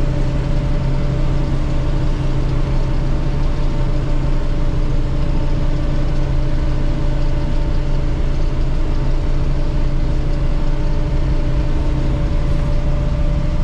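Combine harvester running steadily while cutting wheat, heard from inside the cab: an even machine drone with a few steady hum tones, unchanging throughout.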